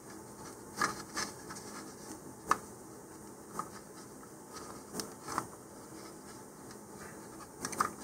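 Faint rubbing and handling noise with a few light clicks and taps, as fingers pull a rubber shock cord through a plastic nose cone's eyelet and tie it in a knot.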